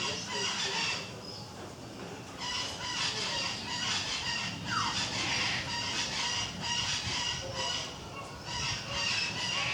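Caique parrot calling in a run of repeated high-pitched squawks and squeals.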